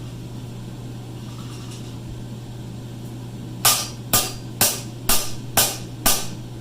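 Six hammer strikes on hot steel bar stock on an anvil, about two a second with a short metallic ring after each, starting just past the middle: pre-dimpling marks in the bar. A steady low hum runs underneath.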